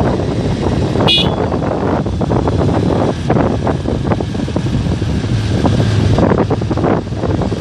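Wind noise on the microphone over a motorcycle running along at speed, with one short, high horn beep about a second in.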